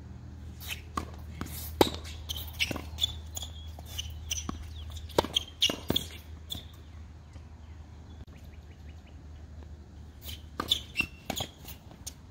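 Tennis rally on an outdoor hard court: sharp racket strikes on the ball and ball bounces, with short high chirps among them. The hits come thick through the first seven seconds, stop for about three seconds, then start again.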